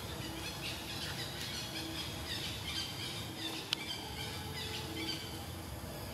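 Outdoor ambience with many short, high chirps and squeaks scattered throughout, over a steady low background rumble, and one sharp click a little past halfway.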